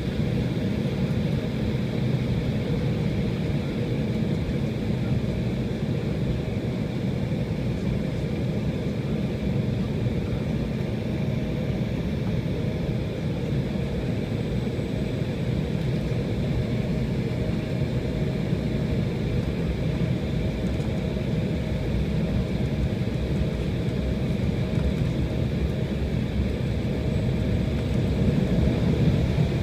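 Steady engine noise and low rumble of an airliner heard from inside the passenger cabin while taxiing, growing a little louder near the end as the plane turns onto the runway.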